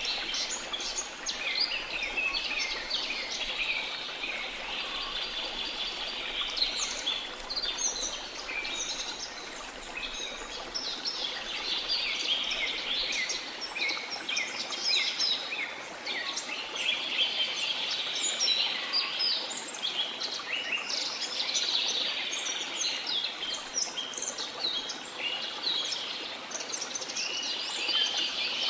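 A dense chorus of many birds chirping and trilling over one another, with no pause, over a steady rush of falling water.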